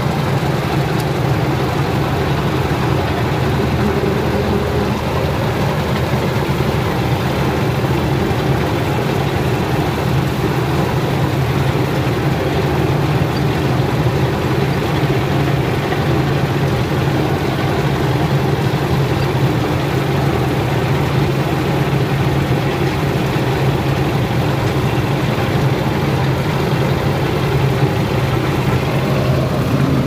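Combine harvester's diesel engine and machinery running steadily as it cuts wheat, heard from inside the operator's cab: a constant loud drone with a steady low hum.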